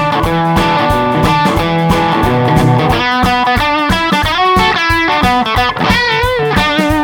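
2007 Gibson Firebird electric guitar played through a Quilter Superblock UK amp into a Celestion Creamback speaker: a picked lick of single notes, with a note shaken in vibrato about six seconds in.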